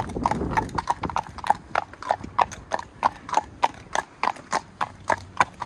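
Hooves of horses walking on a tarmac road: a steady run of sharp clip-clops, about five a second.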